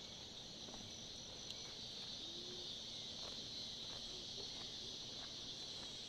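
Steady, high-pitched chorus of forest insects chirring without a break, faint and continuous.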